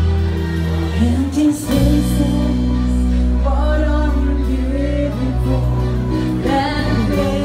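Live band playing in a club over the PA: sustained low chords, with a rising glide about a second in and a higher lead melody with vibrato coming in about three and a half seconds in.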